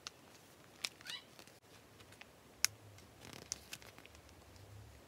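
Faint handling sounds of a foil sheet-mask pouch being squeezed as its serum is poured into a small plastic tray: a few sharp clicks, one about a second in, a louder one near the middle, with a short faint squeak and soft rustles between.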